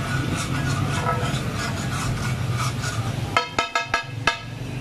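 Metal spatula scraping and chopping across a large flat tawa griddle, then about six quick ringing clangs of the spatula striking the tawa a little over three seconds in.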